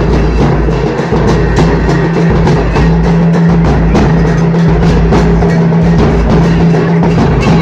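Large double-headed dhol drums beaten with sticks in a steady, dense procession beat, over a steady low drone.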